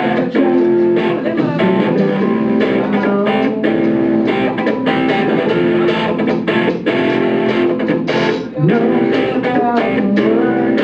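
Live rock band playing a song, electric guitars to the fore over a drum kit.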